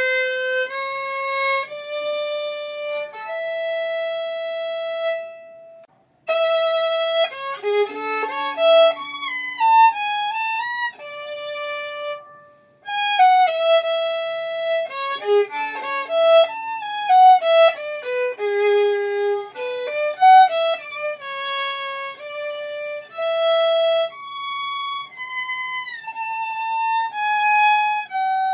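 Solo violin playing a melody of held and moving notes. It stops for a moment twice, about six seconds in and again near the middle, then carries on.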